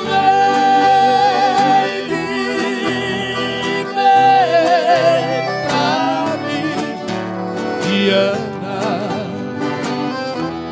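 Sertanejo song played live: long held melody notes with vibrato, in two-part harmony, over plucked-string accompaniment.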